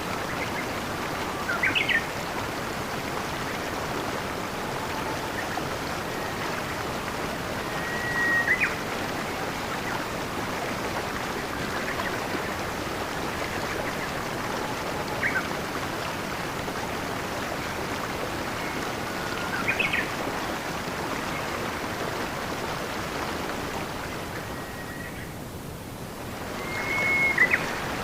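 Steady rush of a flowing stream, with a bird giving short whistled chirps five times, several seconds apart. The water sound dips briefly shortly before the end.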